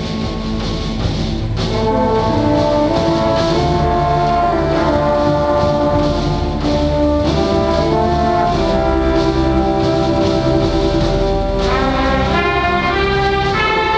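An orchestra playing a film theme, brass carrying sustained, chord-like lines. The music swells a little louder about a second and a half in.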